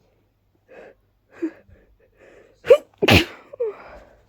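A person's allergy sneeze: a few catching breaths build up, then a loud sharp intake leads into one loud sneeze about three seconds in, followed by a short voiced sound.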